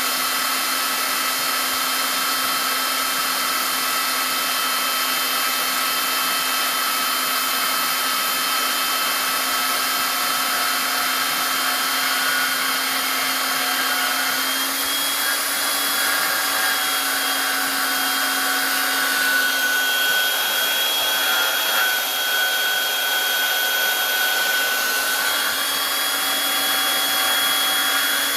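Klutch horizontal metal-cutting bandsaw running through 1.5 by 2 inch rectangular steel tubing with a 1/8 inch wall: a steady motor hum under the hiss of the blade, with high ringing tones from the cut that shift in pitch about halfway through.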